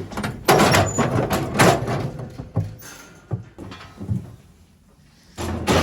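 Metal sheep hurdles and gates of a handling race banging and rattling as ewes are moved through: a series of clanging knocks, two loud ones in the first two seconds, then smaller ones, a brief lull and another bang near the end.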